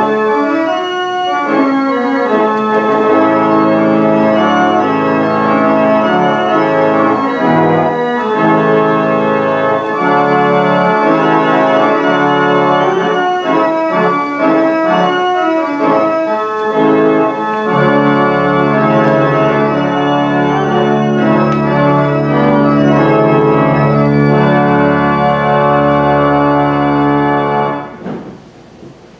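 A 1,972-pipe Aeolian pipe organ played by hand in full sustained chords, with deep pedal bass notes coming in a little past halfway. The music breaks off about a second before the end, leaving a few faint held tones.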